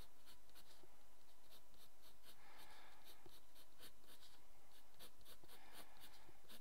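Graphite pencil scratching on a pad of paper in short, quick back-and-forth strokes, drawing a zigzag line. The strokes come a few per second at an uneven pace.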